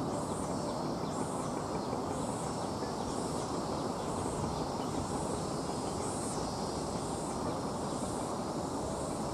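Steady low background rumble, with faint high chirps repeating about once a second.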